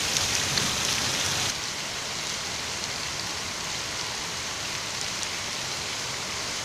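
Heavy rain pouring onto a flooded road, a steady hiss of rain on standing water. About a second and a half in it turns slightly quieter and duller.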